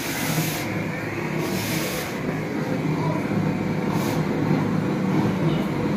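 Gas torch flame burning steadily as it heats the bent lip of a car wheel rim to straighten a dent, with a few brief sharper hisses.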